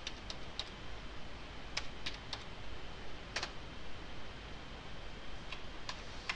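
Computer keyboard being typed on: about ten sharp, irregularly spaced keystroke clicks over a faint steady hiss.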